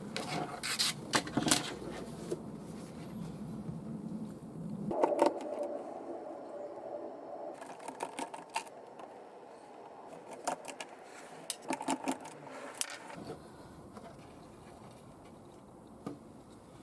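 Scattered clicks and taps of small hard parts being handled, some in quick clusters, over a low steady hum that drops out about five seconds in and comes back near the end.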